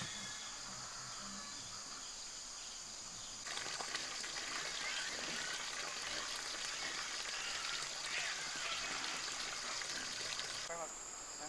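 Insects chirping steadily, then from about three and a half seconds in a stream of water pouring from a pipe and splashing into a pond.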